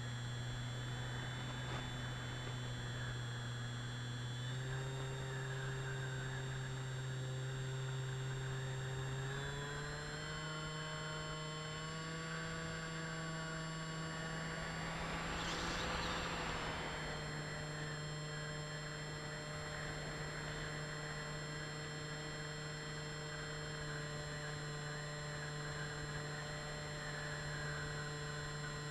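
Electric motors and propellers of an FPV aircraft heard from its onboard camera: a steady hum of several even tones that steps up in pitch twice as the throttle changes, with a brief rushing swell about halfway through.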